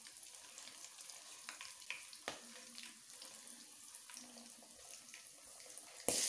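Whole spices, dried red chillies and a bay leaf, sizzling in hot oil in a non-stick kadai: a steady, quiet crackling hiss with a few light clicks of the spatula against the pan. The hiss gets suddenly louder about six seconds in.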